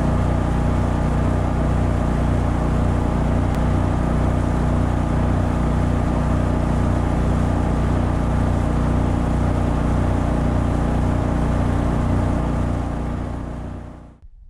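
A 37 HP mud motor on a 17-foot aluminum flat-bottom boat running steadily under way. It fades out near the end.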